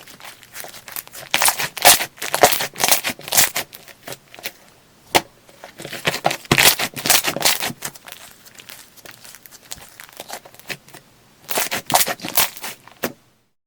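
Slime being squished and pressed by hand, making bursts of crackling, popping clicks in several bouts with short pauses between, stopping abruptly near the end.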